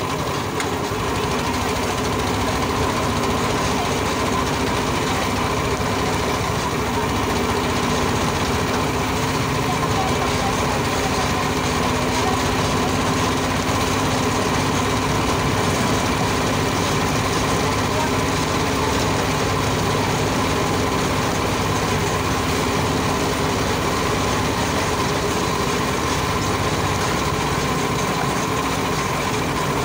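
Steady road and vehicle noise from the passenger seat of a moving trysikad (sidecar tricycle), with a few faint steady tones running through it.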